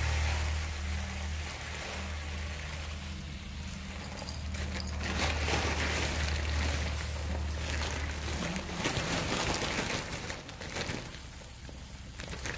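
Dry rice grains poured into a plastic tub: a hissing patter of grains that grows louder about five seconds in and tails off near the end, over a low hum that stops partway through.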